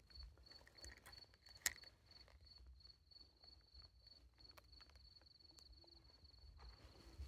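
Faint, steady high-pitched insect trill, with a single sharp click about a second and a half in.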